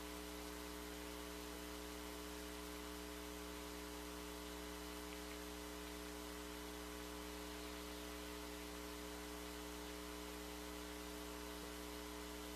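Steady electrical hum with faint hiss: background noise of the recording with no other sound.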